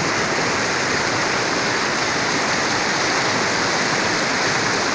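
Steady rushing of river water, a river running high after rain.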